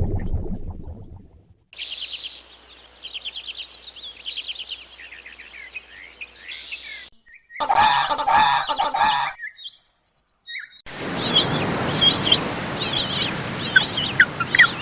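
Small birds chirping in rapid high-pitched trills, heard as several separate short recordings split by brief silences; in the middle comes a lower, harsher bird call lasting under two seconds.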